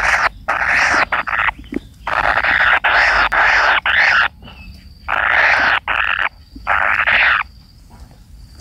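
Collared kingfisher chicks giving harsh, rasping calls in repeated bursts, each a third of a second to a second long, falling off about a second before the end.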